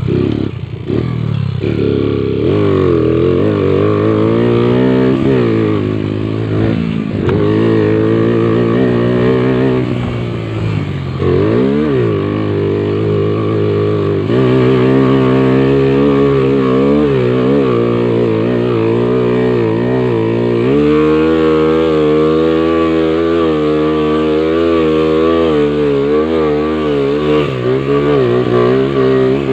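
Motorcycle engine running hard under a rider, its revs rising and falling again and again, with sudden changes in pitch twice, about halfway through and again a few seconds later.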